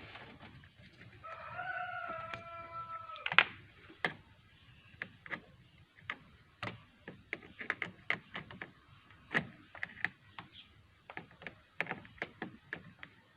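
A rooster crows once, a long call of about two seconds that falls slightly in pitch. After it comes an irregular string of sharp clicks and knocks from parts and hand tools being handled while the idle valve and battery are reconnected; the loudest click comes just after the crow.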